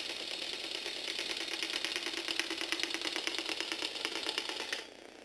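Battery-powered Lego Technic V8 engine walking robot running: a rapid, even plastic clatter of its motor-driven pistons and legs tapping on a wooden tabletop. The clatter stops sharply near the end.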